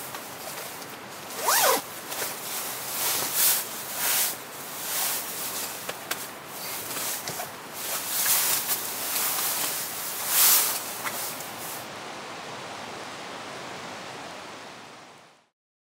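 A zipper being pulled in a series of quick runs of varying length, with fabric rustling, over a steady background hiss; the sound then fades out to silence near the end.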